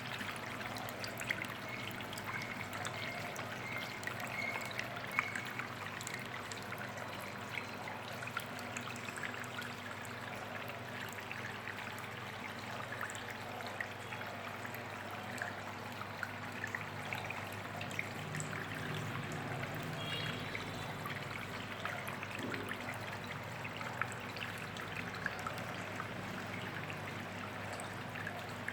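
Water trickling steadily over the rocks of a small paludarium waterfall and stream, with scattered little drips and splashes.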